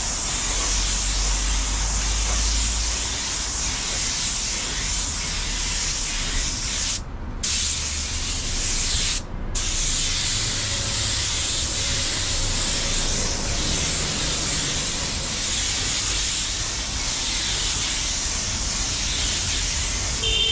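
Paint spray gun hissing steadily while spraying clear coat, with two brief breaks about seven and nine seconds in.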